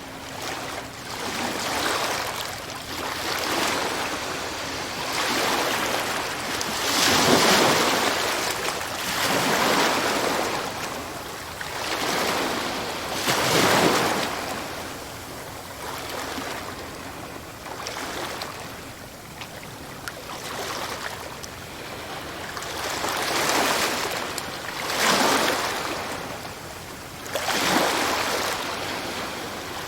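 Ocean waves breaking and washing on the shore, the surf swelling into a loud crash every few seconds and ebbing between.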